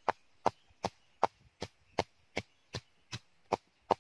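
Stone pestle pounding sliced lemongrass and turmeric in a stone mortar: a steady run of sharp knocks, about three a second.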